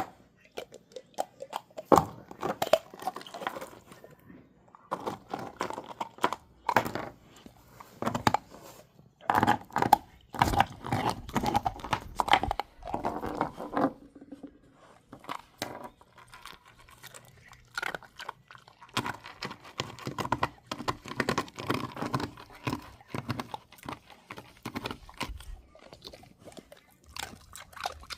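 A Belgian Malinois chewing and crunching on something hard, in irregular bouts of crunches with short pauses between them.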